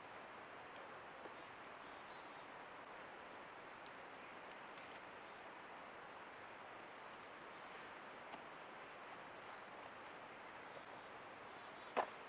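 Creek water flowing with a steady, even rush. One sharp knock or click near the end.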